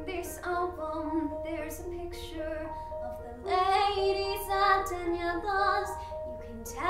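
A teenage girl singing a slow solo musical-theatre ballad over a piano accompaniment. Her voice grows louder about three and a half seconds in.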